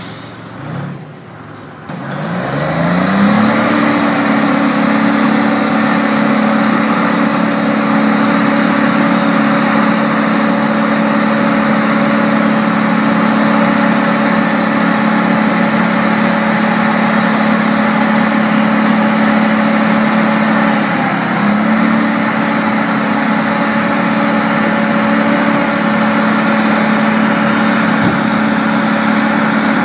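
Heavy truck's diesel engine revving up about two seconds in and held at high revs under heavy load as it pulls a skid-mounted load up onto its tilted bed. The revs dip briefly about two-thirds of the way through, then climb back.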